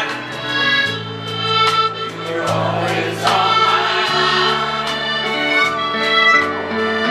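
Live country band playing an instrumental passage between sung lines: sustained reedy melody notes over changing bass notes and steady percussive strikes.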